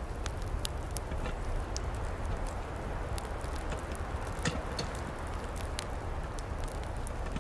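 Wood fire burning in a small folding metal twig stove as the flames catch and flare up: many sharp crackles and pops, one louder snap about four and a half seconds in, over a steady low rumble.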